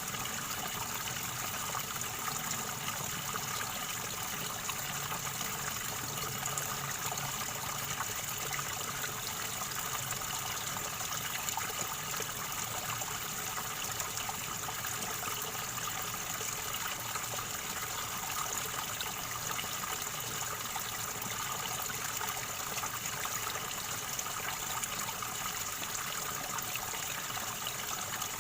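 River water gurgling at a steady, even level.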